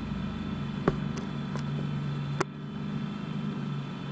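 A steady low hum with a few sharp clicks, the loudest about a second in and another about two and a half seconds in, where the lowest part of the hum drops away.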